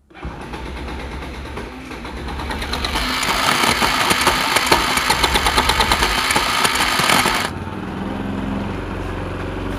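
Bajaj Pulsar NS200's single-cylinder engine running rough, revved up for a few seconds with a rapid knocking clatter, then dropping back to idle about seven and a half seconds in. This is the "ghot ghot" engine noise that the owner complains of as very loud and not smooth.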